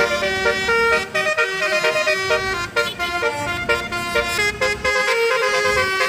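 Indonesian "telolet" bus horn, a Basuri multi-tone horn, playing a quick melody of short, changing notes over and over.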